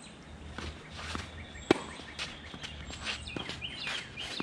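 Tennis rally on a clay court: one sharp racket-on-ball hit about a second and a half in, then a fainter hit from the far end of the court, with shoes scuffing on the clay between them. Birds chirp in the background.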